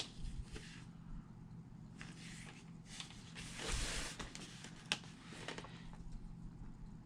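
Faint handling sounds of double-sided tape being laid and pressed along a bag strap: light taps and ticks, with a brief rustle a little past halfway.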